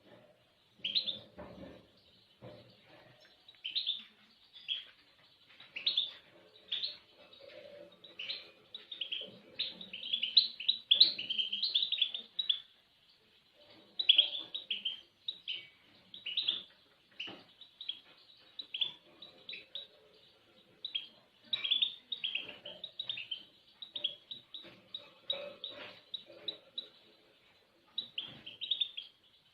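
Songbird chirping and twittering in quick clusters of short, high notes, with brief pauses between phrases.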